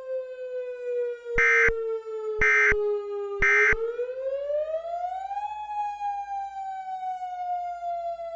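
Siren wailing, its pitch sliding slowly down, rising over about two seconds and then sliding slowly down again. Over it, near the start, three short loud screeching data bursts about a second apart: the Emergency Alert System end-of-message tones that close the alert.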